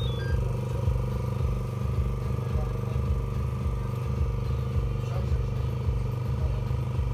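A machine's motor running with a steady hum and a low throb that repeats about one and a half times a second.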